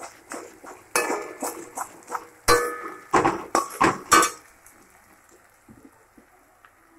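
Metal spatula clanking and scraping against a steel kadai while frying onions are stirred: a quick run of sharp, ringing clinks for about three seconds, then only a faint sizzle of the onions frying in oil.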